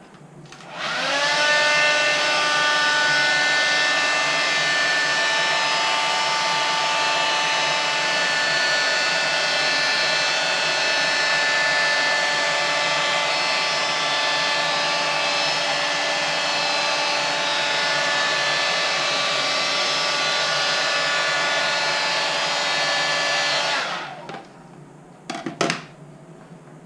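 Electric heat gun switched on about a second in, its fan whining up to speed and then blowing steadily for about 23 seconds as it warms the headlight to soften the butyl seal on the lens. It then shuts off and winds down, followed by a couple of short knocks.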